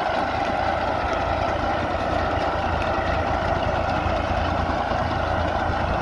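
Tractor engine running steadily under load as it pulls a SUNKING potato digger, which lifts soil and potatoes from the row.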